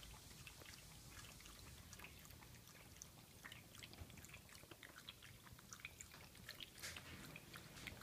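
Yorkshire terrier lapping water from a raised bowl: faint, quick, irregular wet tongue clicks, with no coughing.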